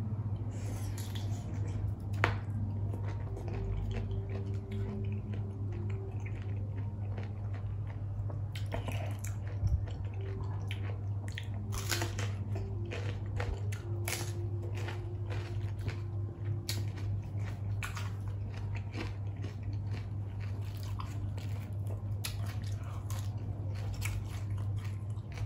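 Close-up chewing and biting: wet, squishy chewing of raw shrimp, then crisp crunching bites into a raw bitter gourd, with the crunches coming thick and fast from about a third of the way in. A steady low hum lies underneath.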